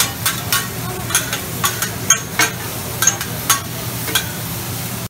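Metal spatulas scraping and clacking on a flat-top griddle while a stir-fry sizzles, the strokes coming irregularly about once or twice a second over a steady low hum.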